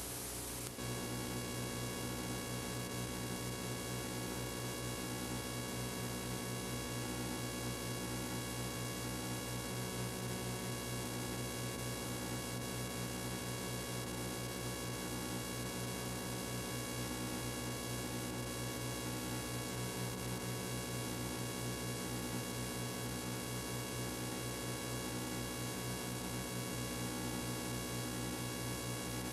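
Steady electrical mains hum and buzz with many overtones over a hiss: the noise of the recording and playback chain with no programme sound. About a second in, a plain hiss gives way to the hum.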